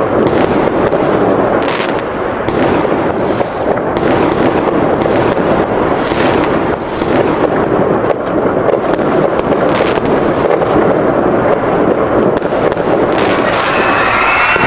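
A dense, continuous fireworks barrage: many bangs and crackles overlapping without a break. About 13 seconds in, it gives way to a steady rushing noise with high whining tones.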